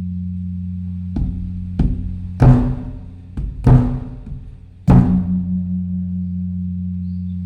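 Large Thai temple drum (klong laeng) beaten in an uneven pattern, six strokes, its low tone ringing on steadily between them. This is the evening drum sounded to announce the eve of a Buddhist holy day (wan kon / wan phra).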